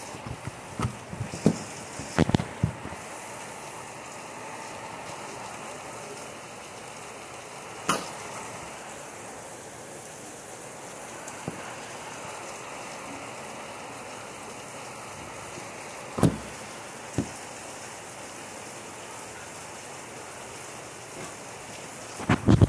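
Heavy rain falling steadily as an even hiss. A few sharp taps sound close by: a cluster in the first three seconds, single ones about eight, sixteen and seventeen seconds in, and another cluster near the end.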